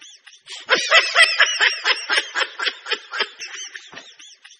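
A high-pitched, sped-up laughter sound effect: a rapid run of giggling bursts, about six a second. It starts about half a second in, is loudest near the start, and tapers off before the end.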